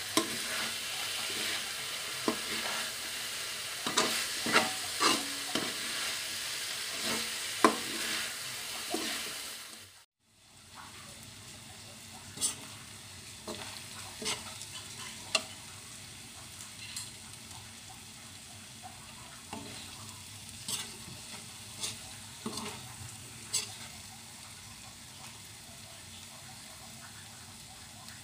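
Diced vegetables sizzling as they fry in a wok, stirred with a spatula that repeatedly scrapes and clicks against the pan. The sound drops out briefly about ten seconds in, then carries on quieter with fewer clicks.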